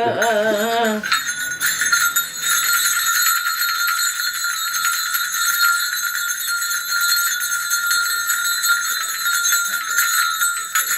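A Korean shaman's cluster of brass ritual bells (bangul) shaken rapidly and continuously, a dense high jingling ring. A few words of speech come just at the start.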